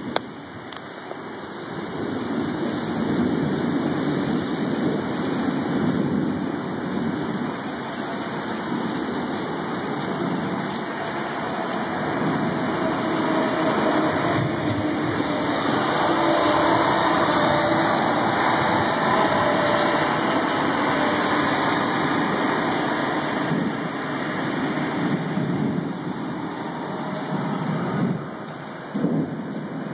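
Heavy rain pouring steadily in a thunderstorm, with a low rumble that swells loudest midway through.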